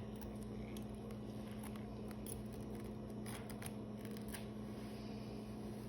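A steady low hum with a few faint scattered clicks of metal suturing instruments being handled while a stitch is placed.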